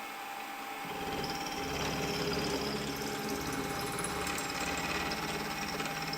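Milling machine spindle running at about 1000 rpm, a steady mechanical run with a constant tone; about a second in it grows louder and fuller as the machine works.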